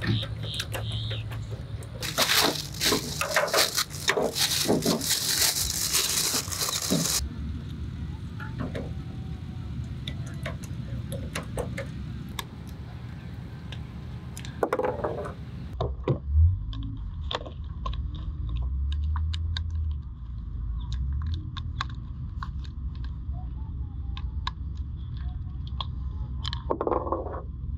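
Clicks, rattles and scrapes of storage-box panels being handled and screwed together with a screwdriver, with a low rumble in the background during the second half. The background changes abruptly a few times.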